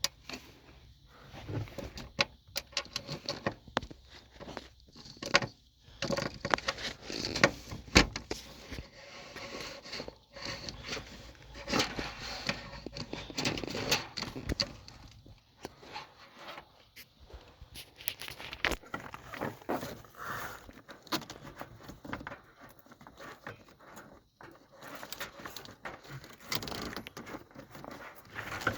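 Irregular clicks, light rattles and scrapes of a hood latch release cable being handled and fed through from inside the truck's cab.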